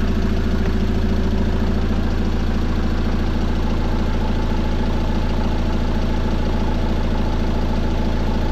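Peugeot Boxer 2.2 HDi four-cylinder diesel engine idling steadily, running well on a newly fitted timing chain.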